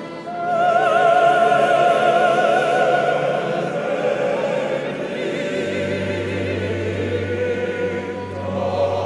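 Men's choir singing in a large reverberant cathedral. A high voice with wide vibrato rises above the choir in the first few seconds, and a low note is held underneath from about halfway.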